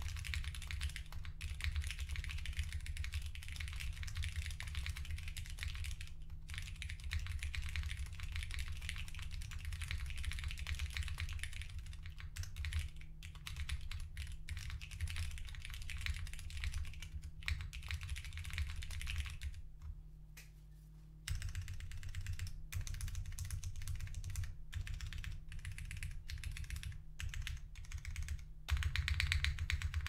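Fast continuous typing on a Ciel60 custom 60% mechanical keyboard with broken-in, lubed Hyperglide Cherry MX Brown tactile switches on a polycarbonate plate, PBT keycaps and no foam. The typing stops for about a second and a half about two-thirds through, then resumes and gets louder near the end.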